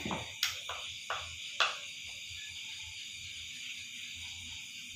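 Steady high chirring of crickets. In the first two seconds it is cut by five short squeaks that fall in pitch.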